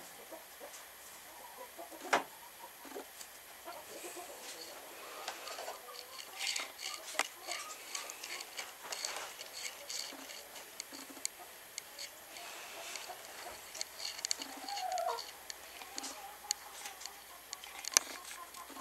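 Hen clucking softly in short, scattered calls just after laying an egg, over a light rustle of nest straw. Two sharp knocks stand out, one about two seconds in and one near the end.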